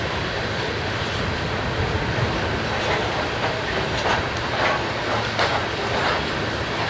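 Loaded coal hopper cars of a BNSF freight train rolling past: a steady noise of steel wheels on rail, with a few sharp clacks from about three seconds in.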